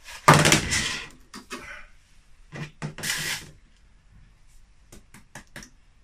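Granules of charcoal and small moisture-absorbing beads poured out of a compressor's filter cartridge, rattling into a plastic tub in two pours, followed by a few light taps as the cartridge is knocked against the tub to shake out the rest.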